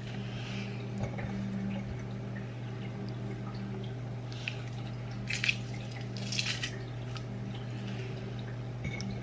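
Garlic cloves being squeezed through a garlic press: a few short squishing sounds in the middle, over a steady low hum.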